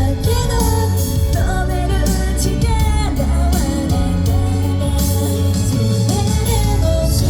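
Live J-pop idol song at full level: a backing track with bass and guitar under wavering female vocals.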